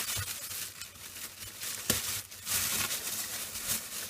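Packaging being handled and torn open by hand: crinkling and tearing, with a sharp click about two seconds in.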